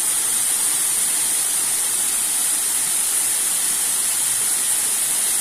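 Waterfall, a steady rush of falling water with a strong hiss.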